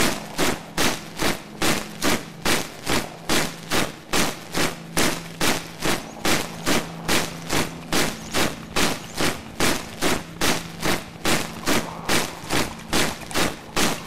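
A steady rhythm of sharp, noisy hits repeating evenly, close to three a second, over a constant low hum.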